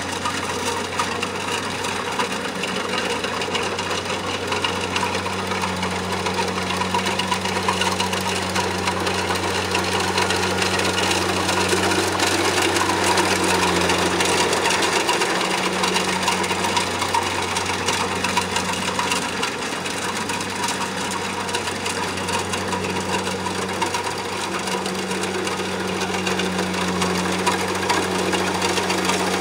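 A Kubota rice combine harvester's diesel engine running steadily at an even speed, with a low hum.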